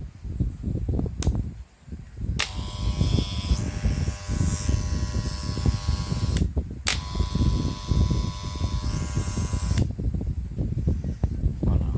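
Walux 902 electric hair clipper switched on and buzzing steadily for about four seconds, cut off for a moment, then buzzing again for about three seconds. Low rumbling noise runs underneath throughout.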